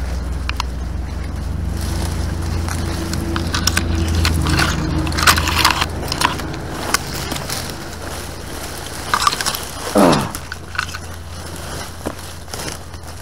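Dry twigs, briars and dead leaves crackling and snapping as someone pushes through dense undergrowth, with a steady low rumble underneath. A short falling pitched sound comes about ten seconds in.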